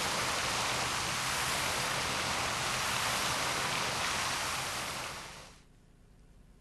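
Steady rushing ambient noise with a faint low hum, fading out about five and a half seconds in.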